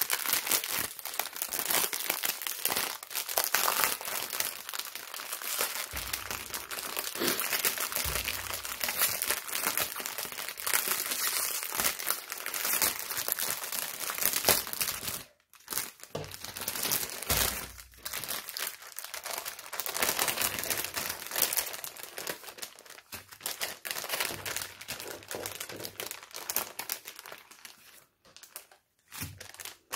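Small plastic bags of diamond-painting drills crinkling as they are handled and laid down one after another, with a short break about halfway through and another near the end.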